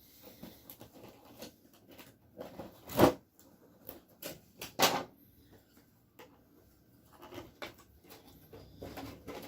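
Scattered handling noises: light clicks and rustles, with two louder knocks about three and five seconds in.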